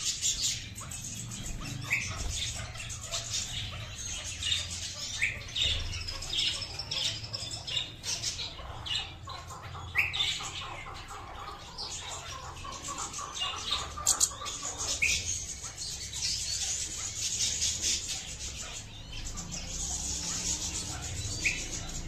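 Himalayan goldfinches calling in a cage: a scatter of short, high chirps and twitters, with a brief rising call about every few seconds.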